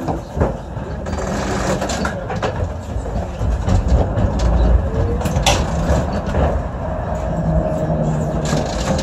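Düwag GT8 articulated tram running along the track, heard from inside the driver's cab: a steady low rumble with scattered knocks and rattles of the wheels on the rails, and a motor whine that rises about halfway through and then holds.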